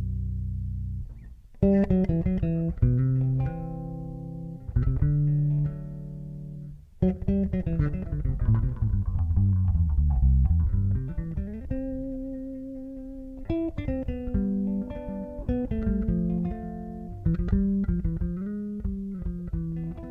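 A plucked string instrument played in a low register: a melody of separate notes, each struck sharply and left to ring, some sliding in pitch, with short breaks about a second in and about seven seconds in.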